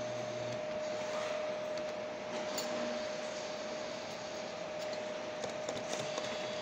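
Claw machine running, with a steady hum under it and a few small mechanical clicks as the claw drops onto the plush prizes, most of them near the end.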